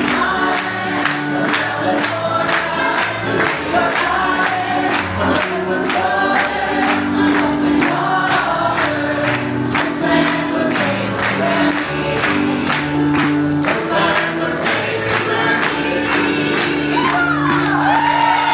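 A group of voices singing a closing song together over music with a steady beat of about two strokes a second.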